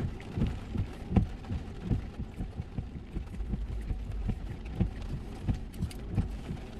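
A man chewing a big bite of chicken burrito close to the microphone: a run of soft, low, rhythmic thuds about two a second.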